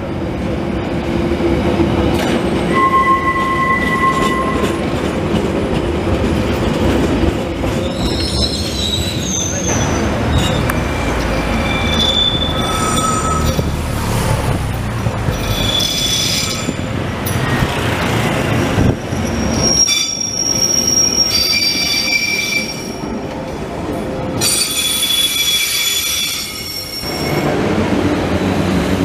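Electric narrow-gauge light-rail railcars of the Roma–Giardinetti line running on street track with a steady rumble. The steel wheels squeal on the curves in high, held tones that shift in pitch, sometimes several tones at once.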